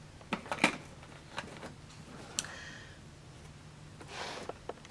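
Plastic sunglasses being handled: a handful of short, light clicks and taps from the frames and temple hinges, with a couple of brief soft swishes of noise.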